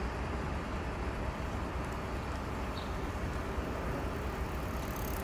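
Steady low rumble of road traffic noise.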